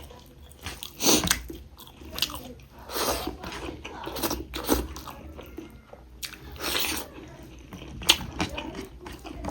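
A person chewing and biting into pork ribs and rice, with irregular wet mouth noises and crunchy bites; the loudest bites come about a second in and again near the end.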